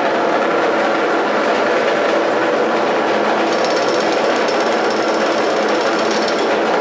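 Several small piston engines on a hand-built eight-engine helicopter running together, a loud, steady, rattling drone. From about three and a half seconds in, a high whine joins in, from a cordless drill used as a starter to spin up another engine, and stops shortly before the end.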